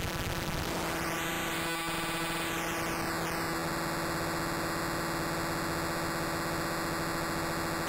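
Mystic Circuits Vert used as a downsampling ring modulator in a Eurorack modular synth, giving a harsh, noisy electronic drone. Just under a second in, two steady low tones enter and a hollow, flanging sweep rises, falls back around three seconds in, then holds steady.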